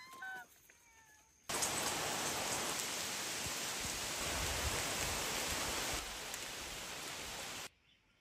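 Steady rain falling on foliage, starting abruptly about a second and a half in and stopping suddenly near the end. A few faint short animal calls come just before it.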